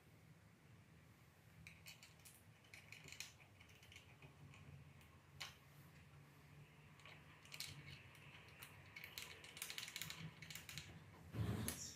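Faint, scattered small metal clicks and scrapes as a miter-gauge bar and its screws are handled and fastened on a table saw's steel top, growing busier in the second half, with one louder knock near the end.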